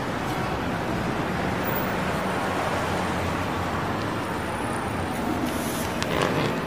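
Steady city traffic noise, an even rumble and hiss with no music, swelling slightly near the end.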